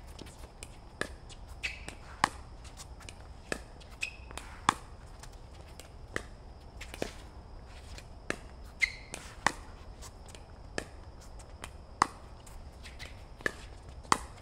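Pickleball paddles hitting the ball in a rally, a sharp pock roughly every second.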